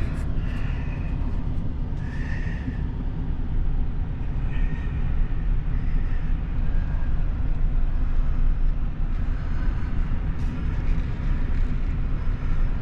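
A vehicle running steadily: a continuous low rumble of engine and road noise.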